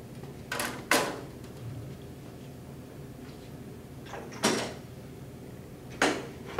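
A few sharp knocks and clatters of hand tools being picked up and handled, over a steady low room hum: two close together about half a second in, one after about four seconds and another near the end.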